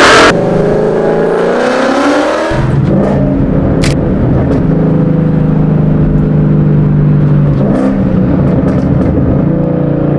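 V8 muscle car with a resonator and muffler delete accelerating, its exhaust note rising in pitch for about two seconds. It then settles to a steady drone at constant revs.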